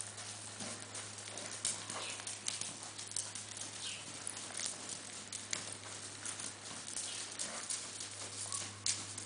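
Paint horse trotting on the sand footing of an indoor arena: a run of dull hoofbeats, heard over a steady low hum.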